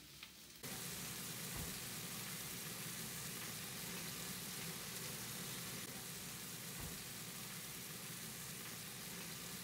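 Sliced onions cooking in a brown sauce in a frying pan, sizzling steadily; the sizzle comes in suddenly about half a second in.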